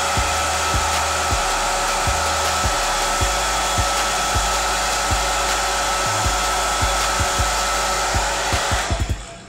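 Handheld hair dryer running steadily, a rush of air with a steady whine in it, switched off near the end.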